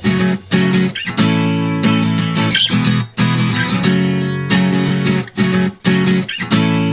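Background music: strummed acoustic guitar chords in a steady rhythm, with short breaks between chord groups.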